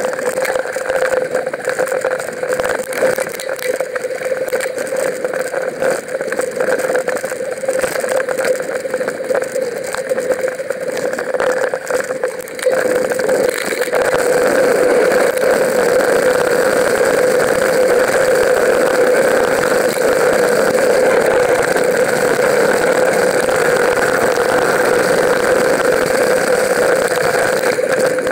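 Mountain-bike riding noise picked up by an action camera on the bike: a steady hum with rough, rattling tyre and wind noise over bumpy grass, growing louder and steadier about halfway in.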